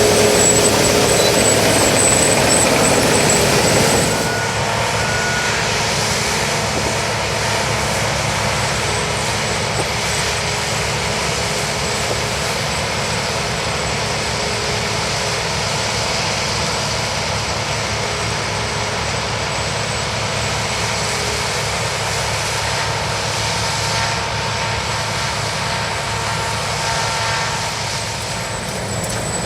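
New Holland TX68 combine harvester running steadily while harvesting rice: a dense, even machine noise with a steady engine hum. It drops a little in level about four seconds in.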